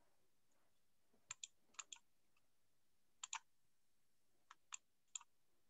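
Faint, sharp computer mouse clicks, mostly in quick pairs, from paging through presentation slides; otherwise near silence.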